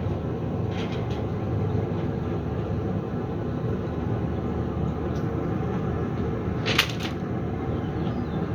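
Steady low rumbling background noise, broken by one short sharp clatter about seven seconds in.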